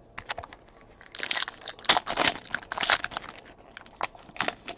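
A foil trading-card pack wrapper being torn open and crinkled in the hands: a dense run of sharp crinkles and tearing rustles, heaviest from about a second in to about three seconds in, with a few lighter crinkles near the end.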